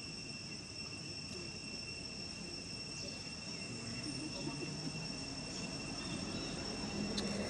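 Steady insect chorus, a constant high-pitched drone with no breaks, with faint distant voices underneath.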